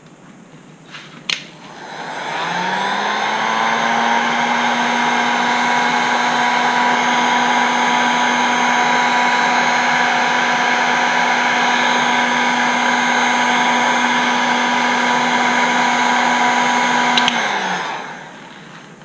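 Heat gun running to shrink heat-shrink tubing over a soldered wire splice: its fan motor spins up about two seconds in, holds a steady whir, and winds down near the end. A single click comes just before it starts.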